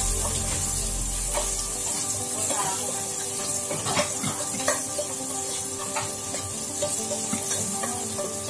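A spatula stirs and scrapes around a pot of food frying in oil, with a steady sizzle underneath and irregular knocks of the spatula against the pot, a couple of them louder about four seconds in.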